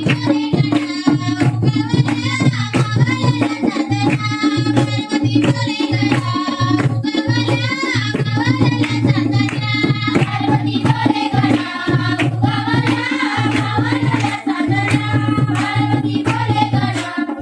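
Marathi folk song from the Konkan: a singer's voice with hand-drum (tabla-like) strokes and a steady low held note underneath.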